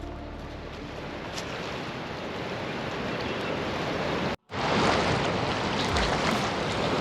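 Steady rush of water from a raging river below a broken-up dam, with wind buffeting the microphone. The sound cuts out for an instant about four and a half seconds in and comes back a little louder.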